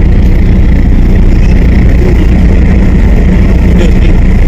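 Steady low rumble of a car's engine and running gear, heard from inside the vehicle.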